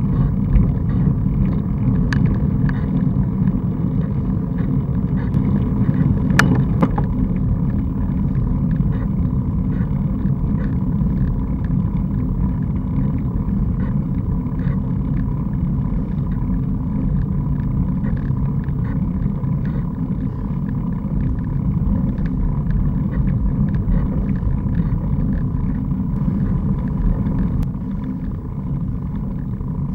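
Steady low rumble of wind and road vibration on a camera mounted on a riding road bike's handlebars, with a few sharp clicks, the loudest about six seconds in.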